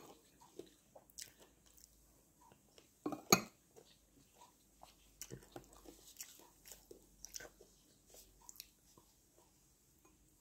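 Close-up chewing, sucking and lip-smacking on chicken feet: many soft, wet mouth clicks scattered irregularly, with one sharp, much louder crack about three seconds in.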